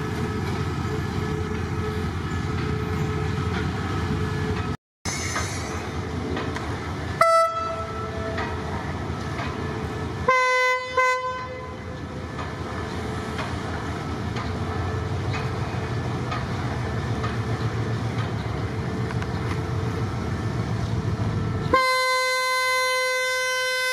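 Diesel locomotive horn over the steady rumble of a passing train: one short toot about seven seconds in, two short blasts around ten seconds, and a long blast starting near the end. The sound drops out briefly about five seconds in.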